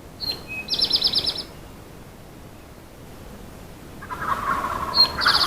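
A songbird sings twice: a short high note, then a quick run of about seven notes. Near the end a wild turkey gobbles off the roost, a rattling call lower than the songbird's.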